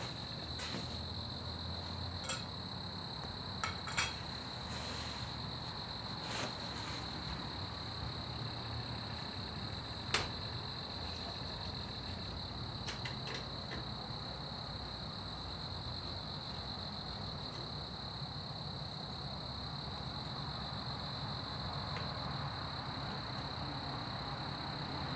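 Scattered light metallic clicks and taps of small parts and hand tools being handled, a few seconds apart, over a steady high-pitched insect drone.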